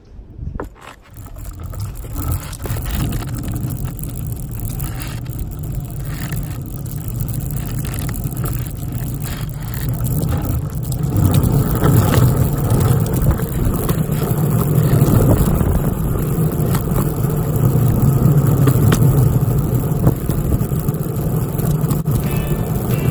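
Skateboard wheels rolling over rough asphalt: a steady rolling rumble that grows louder about halfway through as the board speeds up.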